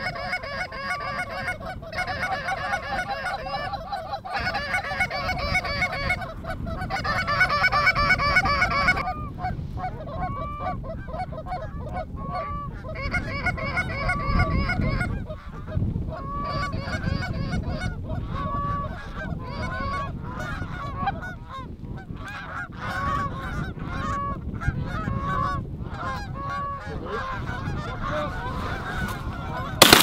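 Flock of Canada geese honking overhead: a dense chorus of overlapping honks for the first nine seconds or so, then thinner, with single honks about once a second. Wind rumbles on the microphone underneath.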